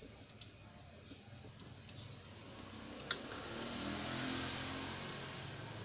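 Faint, light clicks of a screwdriver against a CRT TV circuit board, with one sharp click about three seconds in, then a soft rustle.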